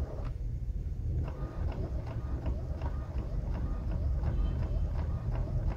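Epson L110 inkjet printer printing a page: the print head carriage shuttles across with a steady mechanical rumble and regular ticking, about three ticks a second, as the paper feeds through.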